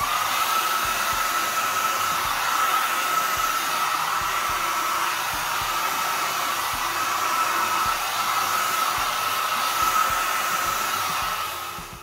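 Hand-held hair dryer running on its high setting, a steady rush of air with a high whine, blowing wet acrylic paint outward into a bloom. It dies away near the end.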